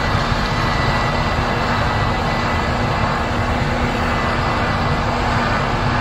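Case IH 8230 combine harvester and a Case IH tractor running steadily side by side while the combine unloads soybeans into a grain cart on the go: an even mechanical drone with a steady hum through it.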